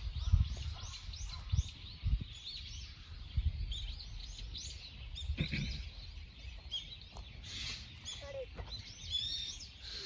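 Small birds chirping, many short high calls one after another, with a denser run of chirps near the end. Low thumps in the first few seconds.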